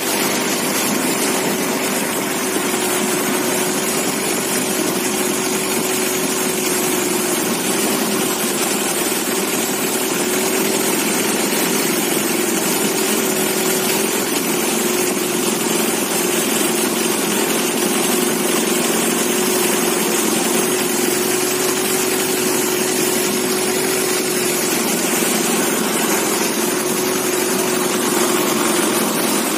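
A boat's engine running steadily at a constant pitch, with an even hum and no change in speed.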